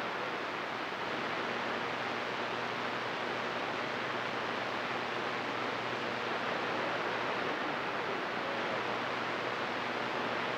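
CB radio receiver hiss: steady band static on an open channel between transmissions, with a faint low hum underneath.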